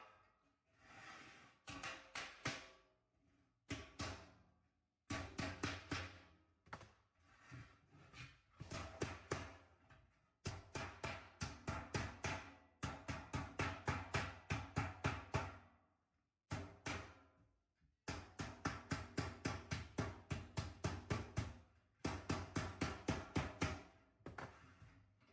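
Sheet metal hammer striking the galvanized steel seam of a duct fitting in quick runs of about four blows a second, broken by short pauses, the metal ringing under each blow: the seam being hammered over to close it.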